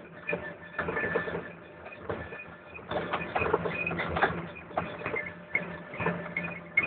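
Cabin noise of a driverless electric pod in motion: a steady hum and whine with irregular clicking and rattling throughout, busiest from about three seconds in.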